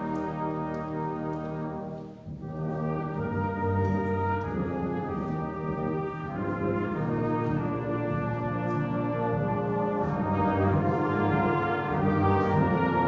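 Brass band playing slow music in long held chords, with a short break between phrases about two seconds in.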